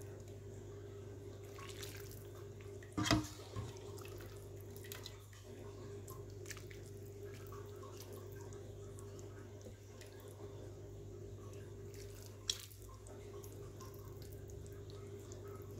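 Soup broth ladled into a bowl of noodles and beef balls, pouring and dripping softly, with a sharp clink of the ladle against the bowl about three seconds in and another near the end. A steady low hum runs underneath.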